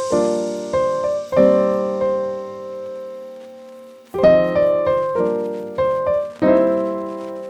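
Background piano music: slow chords and single notes struck and left to ring and fade.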